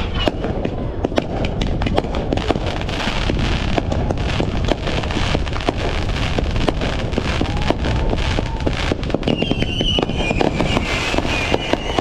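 Aerial fireworks going off: a rapid, irregular string of crackling pops and bangs over a steady low rumble. From about three-quarters of the way in, a wavering high whistle-like tone joins the bangs.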